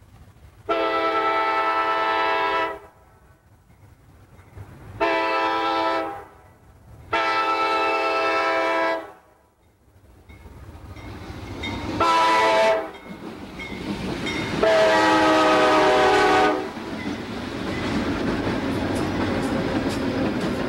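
Multi-chime air horn of an approaching diesel freight locomotive sounding five blasts, the last four in the long-long-short-long grade crossing signal. After the last blast the rumble of the locomotives passing, with wheels clicking over the rails, swells up.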